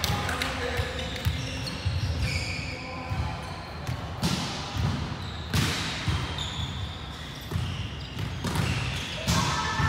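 Balls thudding on a hardwood sports-hall floor, ringing out in the hall's echo, with bits of distant voices.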